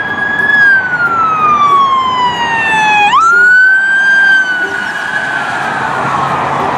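Police car siren wailing: one long tone slides slowly down, sweeps quickly back up about three seconds in, then holds and slowly falls again, over a steady hiss.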